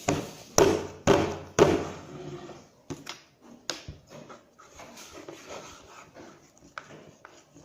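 Three sharp knocks about half a second apart, then lighter clicks and rattles: containers and utensils being handled on a table.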